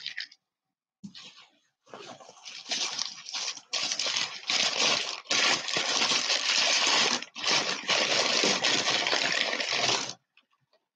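White packing paper crinkling and rustling as it is pulled open by hand to unwrap a small figurine, a dense crackling rustle that starts about two seconds in and stops shortly before the end.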